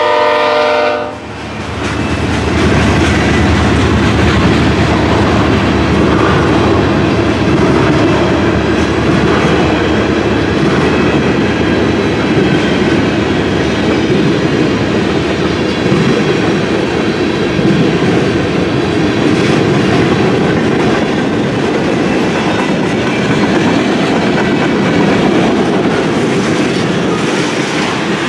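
Freight train horn sounding a held chord that cuts off about a second in, then a long string of tank cars and covered hoppers rolling past with the steady noise of steel wheels on rail.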